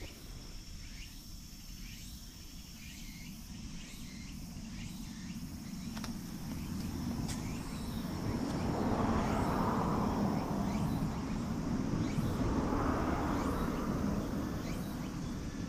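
Outdoor ambience with a steady high insect drone and a few faint ticks. A broad rushing noise swells up about halfway through, peaks twice and then eases off.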